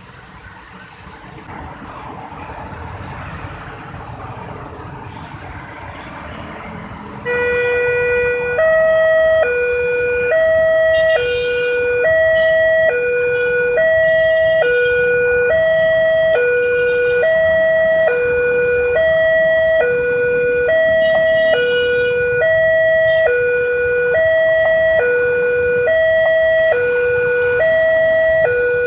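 Railway level-crossing warning siren sounding from a horn loudspeaker, starting about seven seconds in. It is a loud two-tone hi-lo wail, switching evenly between a lower and a higher tone a little faster than once a second, the warning that a train is approaching and the barriers are closing. Before it starts there is a rising hiss of road traffic.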